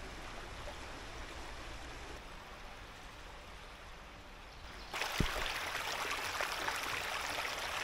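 Shallow river running over rocks: a steady rush of water that grows louder and brighter about five seconds in, with one brief low thump just after.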